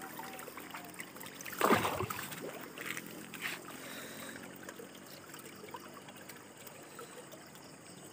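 Stream water trickling and flowing steadily, with a brief louder noise about a second and a half in and a smaller one a couple of seconds later.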